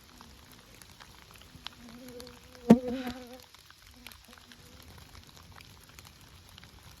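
Raindrops pattering while a flying insect buzzes close to the microphone for about a second and a half, coming back briefly about four seconds in. A single sharp tap in the middle of the buzz is the loudest sound.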